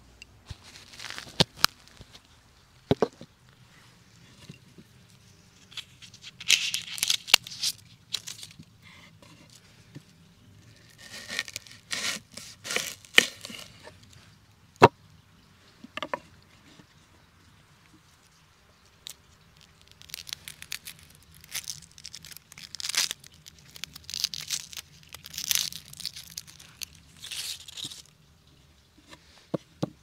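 Onion being peeled and cut by hand: papery skin crackling and tearing, with crisp knife cuts, coming in irregular clusters of short sounds with pauses between.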